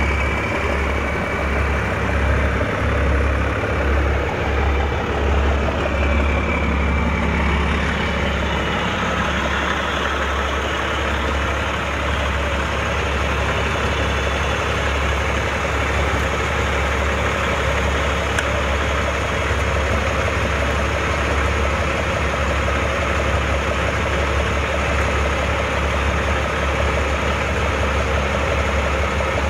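Heavy military vehicle engines idling steadily with a deep low hum. A whine falls in pitch over the first several seconds.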